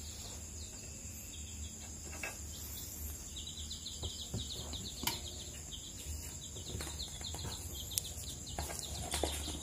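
Faint insects chirping: a steady high trill with a quicker pulsed chirp, over a low hum. A few soft clicks from eggs being handled on the candling lamp.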